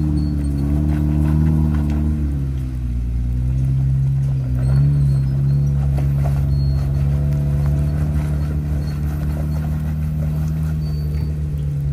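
Off-road vehicle engine running at low revs. Its pitch drops about two seconds in, picks up slightly a couple of seconds later, then holds steady.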